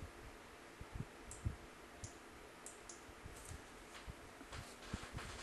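Faint, scattered clicks and light taps as small plastic drone parts are handled while a motor's cable connector is worked loose. The loudest tap comes about a second and a half in.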